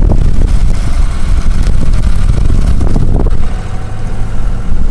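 Car driving through deep snow, heard from inside the cabin: a loud, steady low rumble of engine and tyres.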